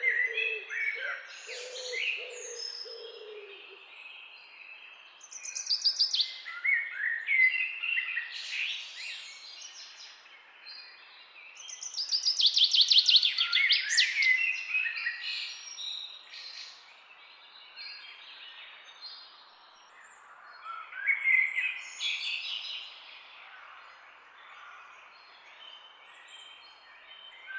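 Wild birds singing: bursts of chirping and trilling song phrases, with a fast, loud trill in the middle, and over the first few seconds a low, repeated call.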